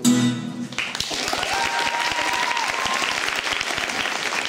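A final strummed chord on an acoustic guitar rings briefly and dies away. About a second in, audience applause breaks out and carries on steadily.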